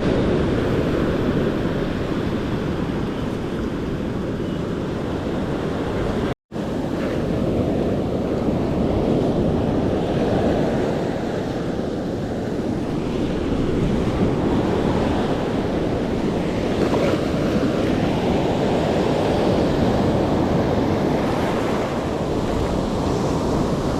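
Ocean surf breaking and washing up the beach, a steady rushing noise, with wind buffeting the microphone. The sound drops out for an instant about six seconds in.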